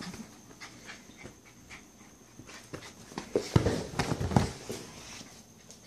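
Small dog tussling with a rope-and-ball tug toy: scattered rustles and clicks, then a cluster of louder knocks and scuffles about three and a half seconds in.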